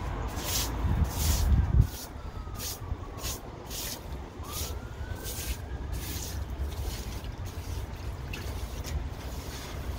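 Stiff yard broom sweeping wet concrete, its bristles scraping in quick repeated strokes, roughly two a second. A low rumble under it is loudest in the first two seconds.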